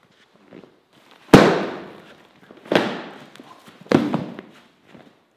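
Deflated Sea Eagle inflatable canoe slapping down onto the shop floor three times as it is unfolded, each slap loud and sudden and echoing off the metal building, with a few lighter knocks of the vinyl between.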